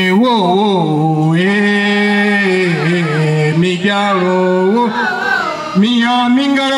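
A solo voice singing a chant-like melody in long held notes that slide and waver in pitch.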